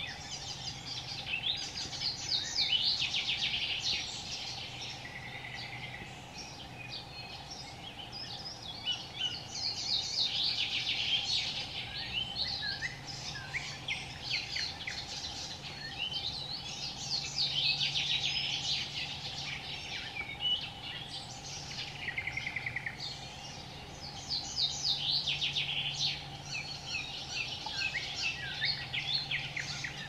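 Songbirds singing: rapid, chattering phrases a few seconds long, one after another, over a faint steady hum.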